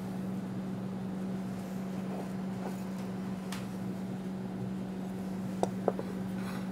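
Steady low hum of room or kitchen equipment, with a soft click midway and two sharp clicks near the end from metal tongs tapping a ceramic plate as slices of French toast are set down.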